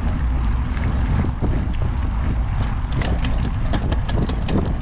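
Sonder Transmitter SX mountain bike ridden along a dirt and gravel trail: tyres rolling and wind rumbling on the body-mounted microphone, with quick clicks and rattles from the bike over rough ground that grow busier about three seconds in.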